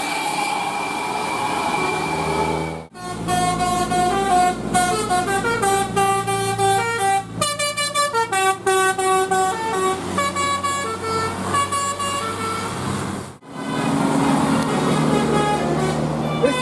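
Bus telolet horn, a Basuri multi-tone air horn, playing a tune of quick stepped notes for about ten seconds, starting about three seconds in. Before and after it a heavy bus engine is running.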